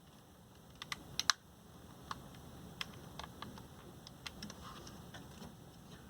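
Light clicks and taps from laptop parts and small hardware being handled and fitted, with a quick cluster of sharper clicks about a second in and scattered single ticks after.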